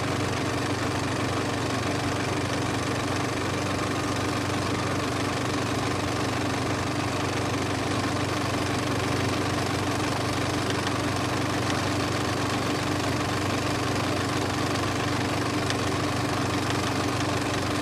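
A motor running steadily: a constant mechanical hum that does not change.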